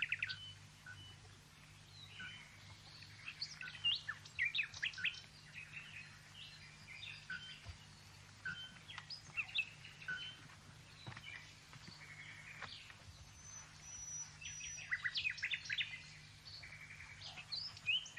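Songbirds chirping and calling in short, scattered notes, with one longer thin high whistle about three-quarters of the way through.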